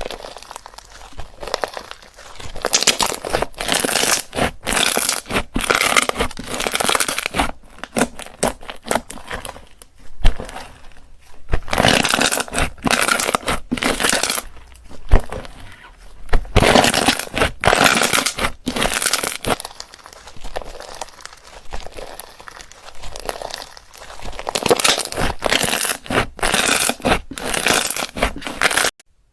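Slime being squeezed, stretched and pressed by hand, giving dense clusters of small pops and clicks in uneven surges with short lulls between. The sound cuts off abruptly near the end.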